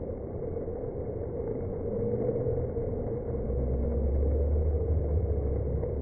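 Indoor water park noise slowed down for slow motion, heard as a deep, smeared rumble with long, drawn-out low tones in it.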